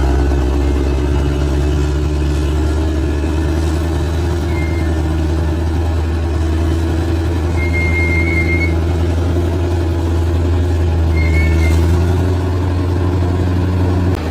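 Large bulldozer's diesel engine running steadily under load, a deep continuous drone. A few short high squeaks, one longer than the rest, sound over it about a third of the way in, midway and near the end.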